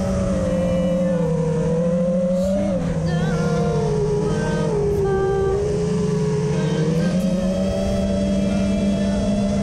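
FPV quadcopter's brushless motors and propellers whining steadily, their pitch dipping lower around the middle and climbing back as the throttle changes.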